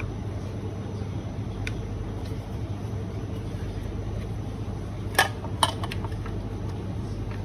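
Two sharp metallic clinks a split second apart, about two-thirds of the way in, over a steady low hum, as parts of a Eureka coffee grinder are handled while it is being cleaned.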